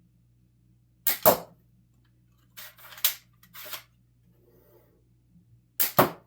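3D-printed repeating crossbow's mechanism snapping and clacking: a loud sharp snap about a second in, a run of several quicker clicks around three seconds, and another loud snap near the end.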